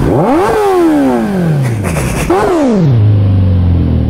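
Kawasaki ZX10R inline-four sportbike engine revved hard twice from a standstill. Each rev climbs sharply and then falls back more slowly, and the engine settles to idle after about three seconds.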